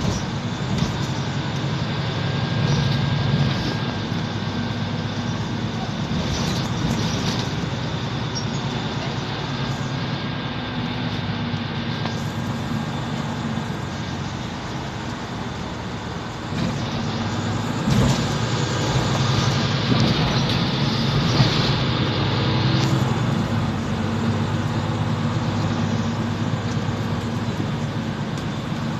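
Inside a Mercedes-Benz Citaro bus on the move: its engine and drivetrain run steadily under road noise. About two-thirds of the way through, a spell of hiss rises and then cuts off suddenly.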